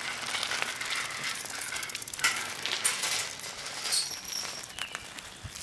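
Adult tricycle rolling over an asphalt driveway: a steady hiss of tyres on the grit, with a few sharp clinks and ticks from the bike, the loudest about two, three and four seconds in.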